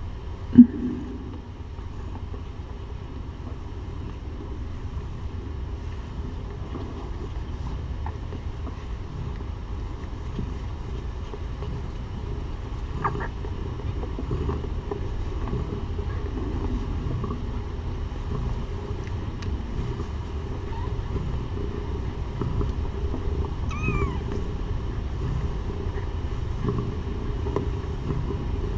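A few faint, high mews from young kittens, one about halfway through and one near the end, over a steady low room hum. A short, loud pitched sound comes just after the start.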